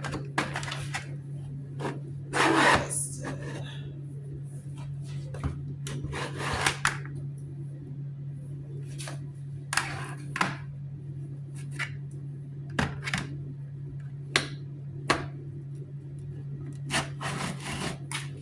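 TopTier X3 flat mop being fitted into and pushed through the slot of its self-cleaning bucket: scattered plastic knocks and clicks with several stretches of scraping and rubbing as the mop head slides in. A steady low hum runs underneath.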